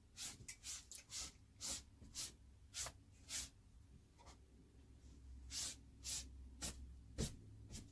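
Scratchy brushing strokes of cleaning, about two a second, pausing briefly past the middle before resuming.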